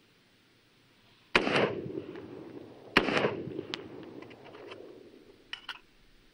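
Two rifle shots from an AR-15 (Bushmaster XM15) firing .223 rounds, about a second and a half apart, each followed by a long rolling echo. A few faint clicks come near the end.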